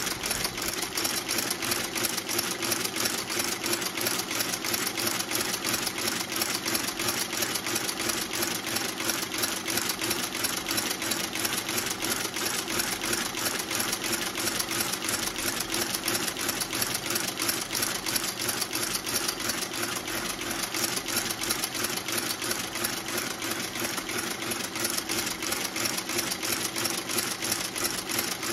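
Landis outsole stitching machine running steadily, its needle and awl mechanism clattering in a fast even rhythm as it stitches through a boot's sole.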